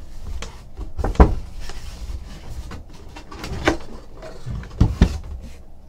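A cardboard box being opened and handled: rustling and scraping of the flaps, with several sharp knocks, the loudest about a second in and two close together near the end.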